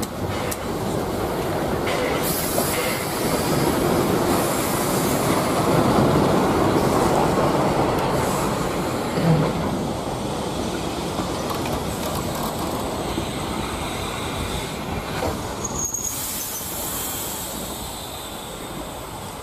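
A heritage passenger train hauled by steam locomotive 313.902 and diesel locomotive T211.042 rolls past close by, its coaches' wheels rumbling and clattering on the track. The noise swells to its loudest about six seconds in and then slowly fades. There are high-pitched wheel squeals about two seconds in and again near the end.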